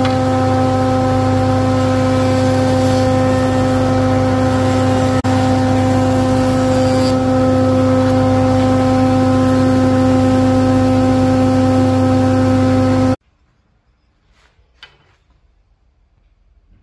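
Spindle moulder running with a steady, even machine hum. It cuts off suddenly about 13 seconds in, leaving only a few faint clicks.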